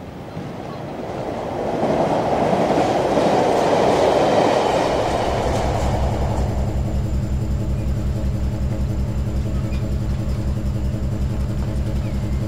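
Dubbed-in sound effect of a train rumbling past, swelling over a few seconds and then fading. About five seconds in, a steady low engine thrum with a fast, even pulse takes over.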